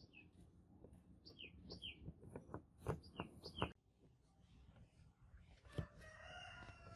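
Sparse sharp clicks and taps from small diecast model car parts being handled and pressed together; the loudest come about three, three and a half and six seconds in. A bird chirps short falling notes several times through the first four seconds, and a rooster crows faintly near the end.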